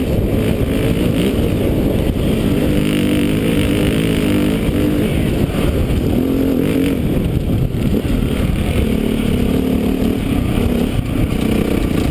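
KTM 400 dirt bike engine running under riding load on a dirt trail, its pitch rising and falling as the throttle is worked.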